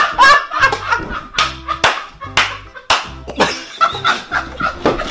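Background music with a steady beat of sharp hits about twice a second over a low bass.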